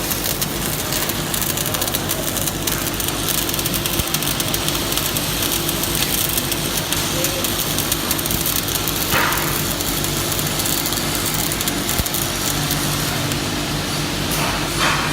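Stick-welding arc on a 6013 electrode crackling steadily as a bead is run on steel plate, over a steady low hum.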